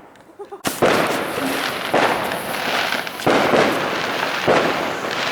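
Fireworks and firecrackers: after a brief lull, a sudden loud burst less than a second in, then dense continuous crackling and bangs with fresh surges about every second and a half.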